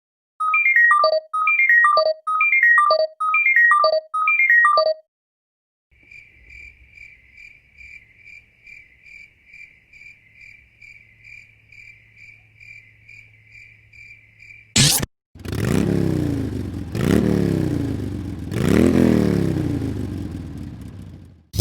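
Electronic background music. It opens with a short synth phrase of falling notes played five times over, then a quiet high tone pulsing about twice a second, then loud electronic music with repeated sweeping swoops in pitch.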